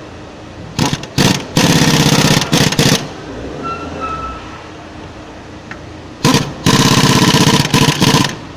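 Impact wrench tightening the bolts of a new engine mount, fired in two bursts. Each burst opens with a short blip or two and then runs for a second or two before cutting off suddenly.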